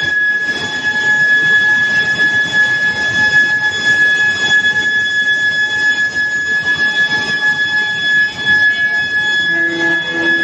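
Medium-frequency induction billet reheating furnace running, giving a steady high-pitched whine over a constant din of plant noise. A lower hum joins near the end.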